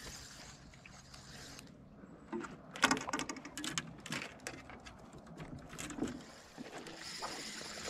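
Spinning reel being cranked to retrieve line, its gears clicking and whirring in short spells from about two seconds in.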